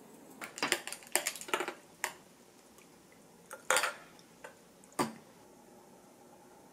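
Tableware clinking and knocking on a table: a quick run of light clinks in the first two seconds, then a few single knocks, the loudest near four and five seconds in.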